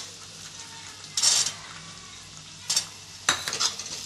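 Green peas frying in hot oil and onion tempering in a steel kadhai, a steady low sizzle. Metal utensils scrape the pan about a second in, again near three seconds, then several quick times near the end as the peas are stirred.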